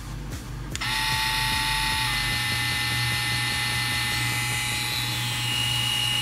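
AVA EP9 wireless tattoo pen's motor switched on about a second in and running with a steady electric whine. Its pitch shifts a little partway through, and a higher tone grows near the end as the pen is tilted to change the voltage.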